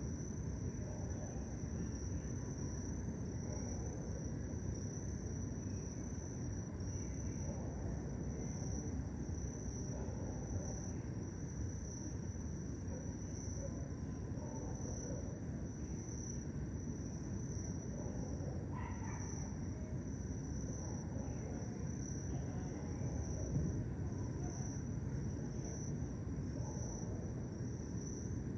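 Crickets chirping in a steady, evenly pulsing high trill at nightfall, over a continuous low rumble of background noise.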